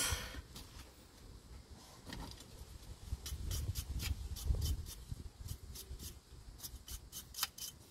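A wire brush scrubbing a fuel injector part clean: short, quick scratchy strokes, several a second, starting about three seconds in after some low handling noise.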